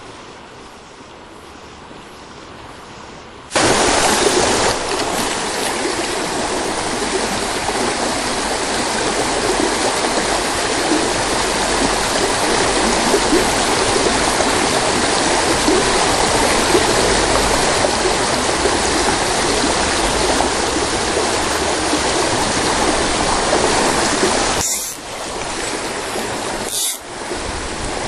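Shallow stream rushing over rocks in a riffle: a steady, loud rush of water. It is softer at first and jumps suddenly louder about three and a half seconds in, then dips briefly twice near the end.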